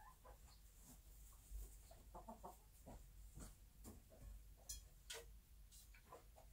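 Very faint, soft clucking from a bantam hen sitting in her nest, a few quiet murmurs about two seconds in, with scattered small clicks.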